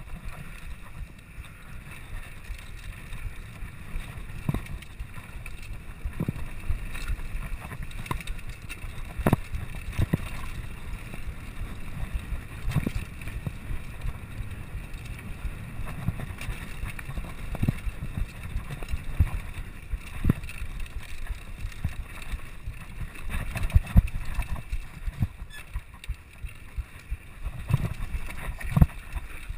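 Mountain bike riding fast down a rough dirt trail: a steady low rumble from the tyres on loose ground, broken by frequent sharp knocks and rattles as the bike hits bumps.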